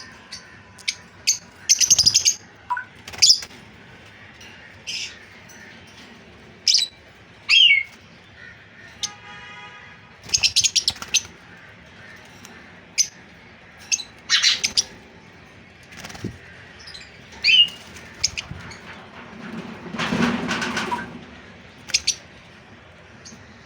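Pet lovebirds giving short, sharp, high-pitched chirps in scattered bursts, with a longer, noisier burst of sound near the end.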